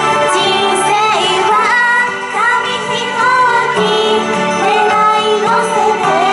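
Young female idol singers singing a J-pop song together into handheld microphones over backing music, amplified through a PA.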